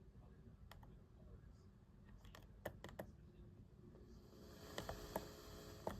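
Faint scattered clicks of a computer keyboard, a few keys at a time. A faint hiss comes up over the last two seconds.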